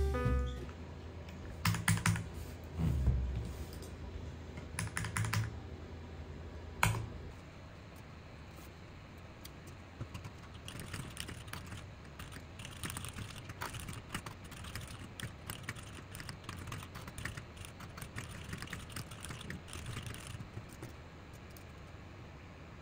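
A few louder knocks and thuds in the first seven seconds. Then fast typing on a mechanical keyboard with a clear case, a dense run of key clicks for about ten seconds that stops near the end.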